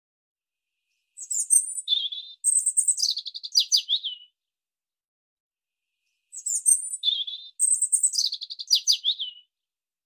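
Bird song, one chirping phrase played twice the same way, each about three seconds: high chirps, a short lower note, then a quick run of notes falling in pitch.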